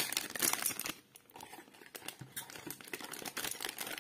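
Thin clear plastic bag crinkling and rustling in the hands, busiest in the first second, then lighter scattered handling rustles.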